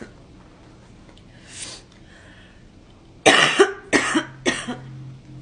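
A girl coughing: a quick fit of about four coughs a little over three seconds in, after a quieter stretch.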